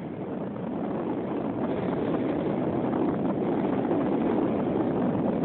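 Wind rushing over the microphone of a small camera carried aloft in a bird's claws. It is a steady rush that slowly grows louder and then cuts off suddenly at the end.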